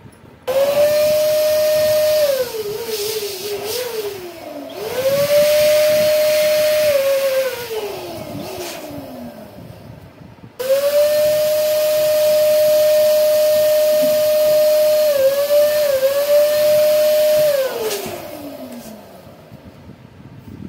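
Electric balloon pump blowing up latex balloons: a steady motor whine with rushing air that runs three times, the last run longest. The pitch slides down at the end of each run as the motor is switched off and winds down.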